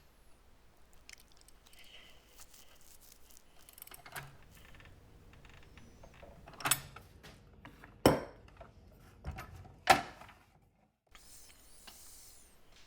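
Metal tools and saw parts being handled: a few sharp metallic clinks and knocks among quieter clicks, the loudest three about seven, eight and ten seconds in.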